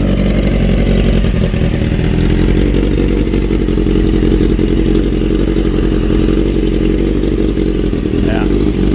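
1995 Honda CBR600F3's inline-four engine running steadily through a new fat-bodied shorty exhaust pipe with a dB killer fitted: a lot louder pipe, sounding healthy.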